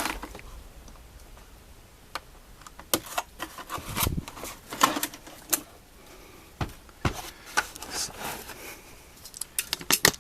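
Scattered clicks, taps and crinkling of a new plastic tool-set case being handled and its seal wrapping pulled off, in short irregular bursts that grow busier toward the end.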